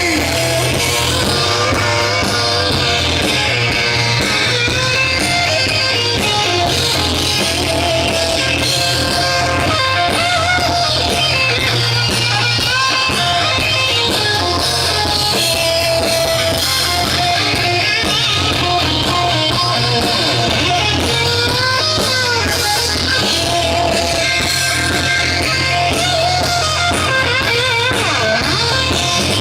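Heavy metal band playing live: distorted electric guitars over bass and drum kit, with a guitar line that bends and wavers in pitch.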